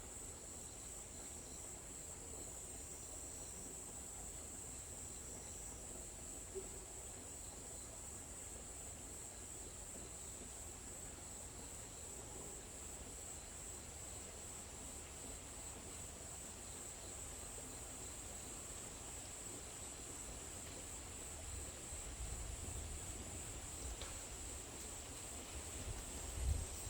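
Insects chirring in a steady high drone, forest night ambience, with a low rumble that swells near the end.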